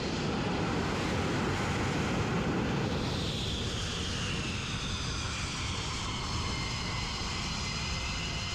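Twin jet engines of a MiG-29K running loud on a carrier deck just after landing. A high whine falls in pitch from about three seconds in as the engines are throttled back.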